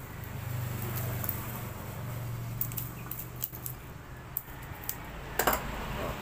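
Clicks, scraping and small metallic rattles of the old aluminum coil winding being worked loose and pulled out of an electric fan motor, with one sharper clatter near the end. A low hum runs under the first half.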